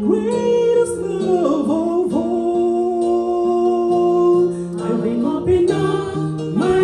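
A Christian worship song: a singer draws out long sung notes over instrumental accompaniment.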